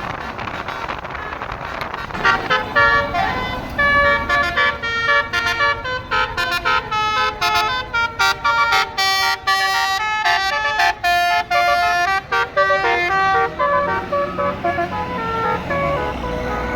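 A bus's basuri telolet musical horn playing a fast melody of short, clipped horn notes, starting about two seconds in and trailing off near the end, over steady traffic and wind noise.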